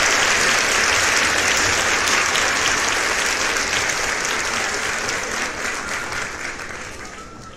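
Applause from a crowd, many hands clapping in a dense patter that fades out gradually over the last couple of seconds.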